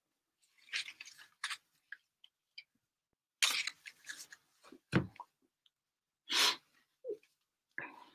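A stack of Mosaic football trading cards being flipped through and shifted in the hands, in several short rustling, sliding bursts, with a single soft knock about five seconds in.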